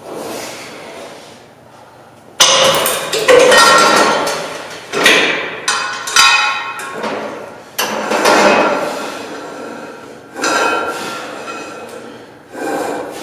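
Metal clanking from a cable machine's weight stack as the cable is worked. There is a series of sharp clanks, each ringing on, spaced about one to three seconds apart from about two seconds in.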